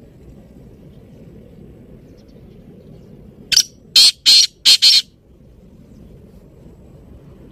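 Black francolin (kala teetar) calling: a quick series of about five loud, harsh, scratchy notes packed into about a second and a half, starting about three and a half seconds in.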